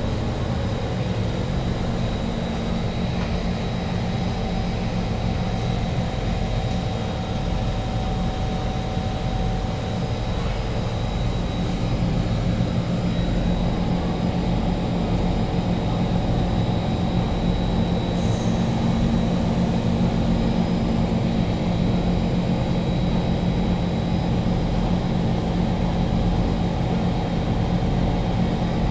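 Steady hum inside a Kawasaki Heavy Industries C151 MRT carriage standing at a station platform, with a faint high whine above it.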